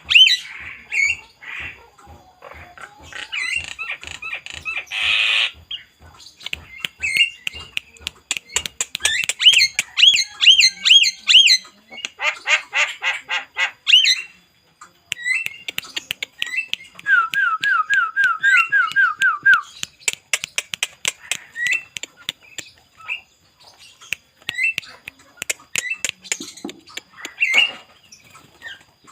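Nias hill myna and Javan myna calling vigorously: a dense, varied stream of squawks, slurred whistles and rapid clicking notes. Past the middle comes a run of about nine quick rising whistles.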